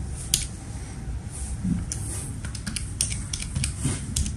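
Buttons of a Casio fx-82ES Plus A scientific calculator being pressed: a run of short, irregularly spaced clicks as a square root is keyed in.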